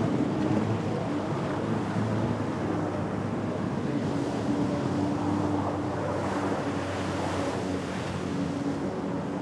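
Jet ski engine running steadily, with water wash and spray around the hull.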